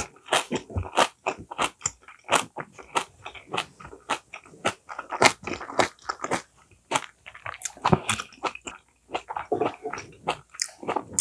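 A person chewing and crunching food, with many short, irregular crunches several times a second and a brief pause about six seconds in.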